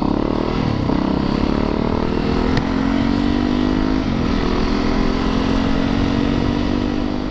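Yamaha YZ450FX dirt bike's single-cylinder four-stroke engine accelerating under load. Its pitch climbs steadily, drops back briefly about a second in and again about four seconds in as it shifts up, then climbs again.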